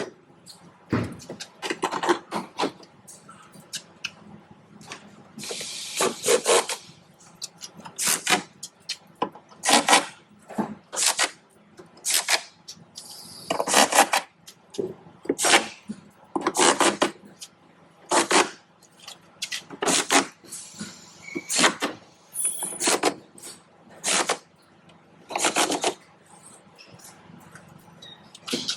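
Hand tools and metal parts being handled during car repair work: irregular knocks, rattles and scraping, one every second or two.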